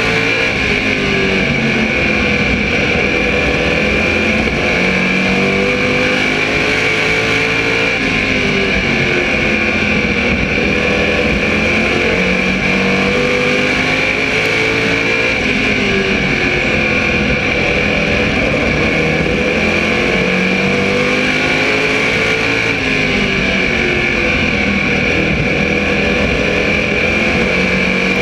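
SK Modified race car's small-block V8 running hard at racing speed, heard on board. The engine note climbs and falls again every few seconds as the car accelerates and lifts lap after lap.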